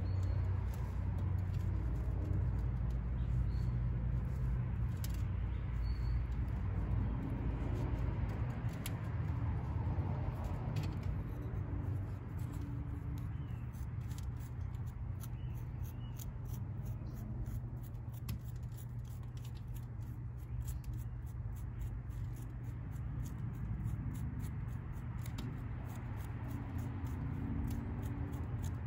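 Soil being scratched and picked loose from a small cedar seedling's root ball with a thin pointed tool. Crumbs drop onto a glass tabletop as many small clicks, thickest in the second half. Under it is a steady low rumble.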